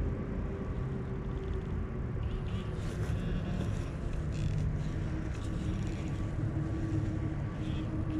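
Steady low engine-like rumble with a faint hum, and a few short scrapes of a digging tool working soil in the hole.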